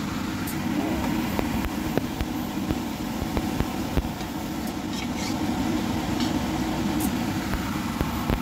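A porcelain ladle clinking now and then against an enamelled pot and a porcelain bowl as soup is scooped and served, over a steady low hum.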